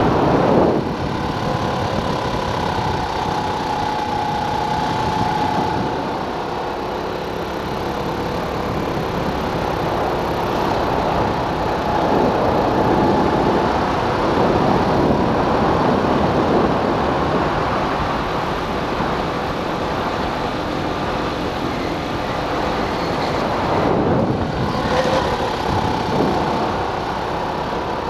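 Racing go-kart's small single-cylinder engine running at speed, heard from the driver's seat, its pitch drifting up and down through the corners over constant rushing wind noise.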